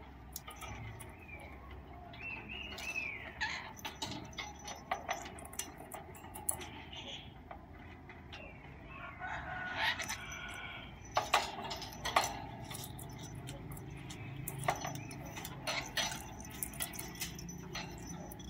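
Parakeet playing with a plastic ball toy on its cage floor: scattered clicks and knocks of the ball and beak against plastic and wire bars. A few bird calls break in, the longest about nine to eleven seconds in.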